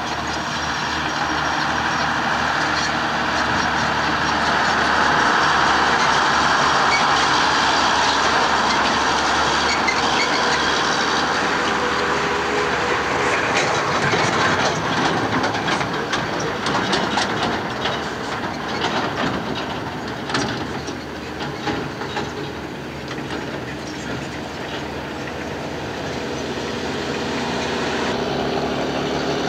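Diesel engines of AEC Mercury dump trucks and a tracked excavator running with a steady drone, loudest in the first half. From about halfway a loaded truck passes with a stretch of loose rattling and clatter.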